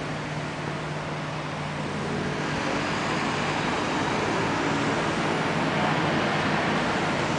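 City street ambience: a steady wash of road traffic noise, growing louder about two seconds in.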